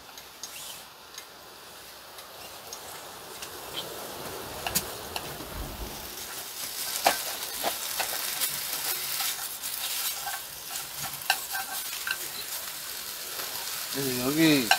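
Food sizzling in a pan on a camp stove, growing slowly louder, with the scattered clicks of a utensil stirring against the pan. A brief voice sounds near the end.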